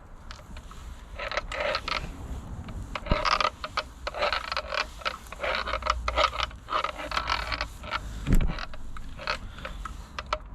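Irregular scraping, rustling and clicking of things being handled, with a louder low thump about eight seconds in.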